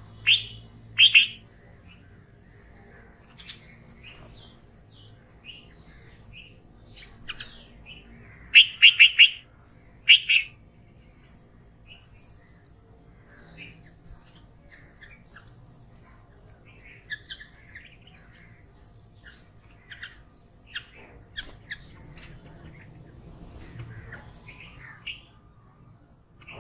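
Red-vented bulbuls calling with short, high chirps: a few loud ones near the start, a quick run of four notes about a third of the way in, then scattered fainter chirps.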